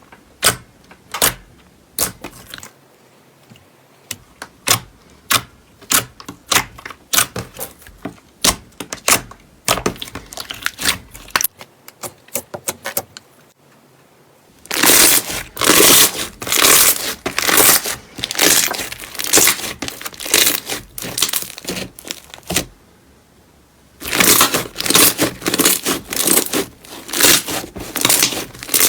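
Slime being pressed and poked by hand: a run of sharp clicks and pops, then about halfway dense, loud crackling and crunching in two stretches with a short pause between.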